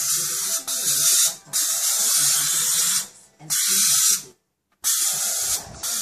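Aerosol can of Raid insecticide spraying in four long hissing bursts of about a second each, with short pauses between them.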